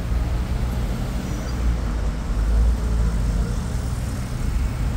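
Street traffic noise: a steady low rumble of cars running and passing on the road.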